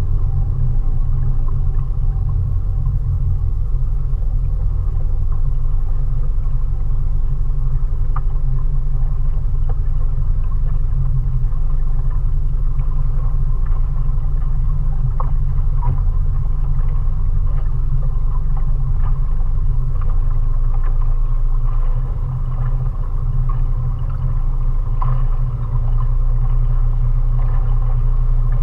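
Mariner 20 hp outboard motor running steadily at cruising speed, a constant low rumble with an even engine tone, easing slightly for a few seconds about three-quarters of the way through.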